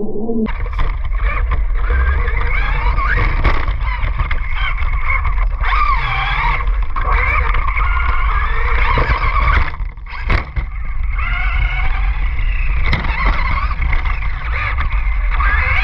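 RC car driving on beach sand on paddle tires, its motor whining and rising and falling in pitch as the throttle changes, with a brief let-up about ten seconds in. A heavy low rumble of wind on the microphone runs underneath.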